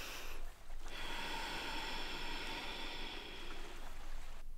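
Slow, deep breaths close to the microphone: one breath ends about half a second in, then a long breath of about three seconds stops shortly before the end.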